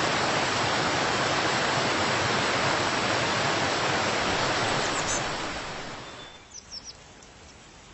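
Steady rush of water that fades away about six seconds in. A few short, high bird chirps follow near the end.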